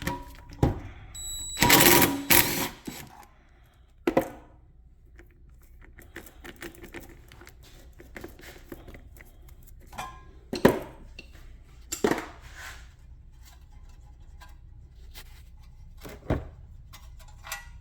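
Hand tools and metal car parts clinking and clanking as rear brake hardware is taken apart, with a dense clatter about two seconds in and single sharp clanks later on.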